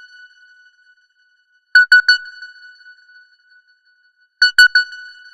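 Simple electronic phone ringtone: a group of three quick, identical bell-like beeps on one high note, ringing out and fading after the third. The group repeats about every two and a half seconds, twice here.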